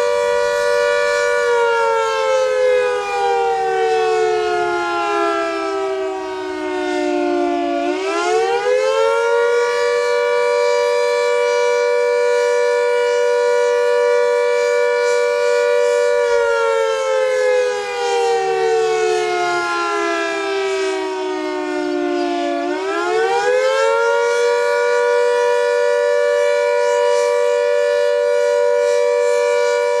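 Emergency warning siren sounding a two-note chord. It holds a steady pitch, slowly falls over about six seconds, then quickly rises back and holds again, a long falling-and-rising wail that happens twice.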